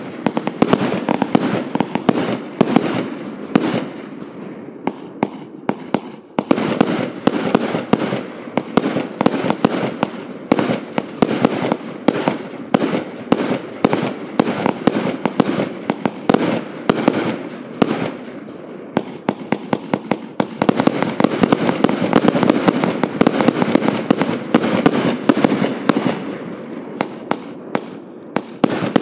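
Hallmark Fireworks "The Joker" 504-shot compound firework cake firing: a rapid, dense string of shots and bursts. It thins out about 4 s and 18 s in, then picks up again.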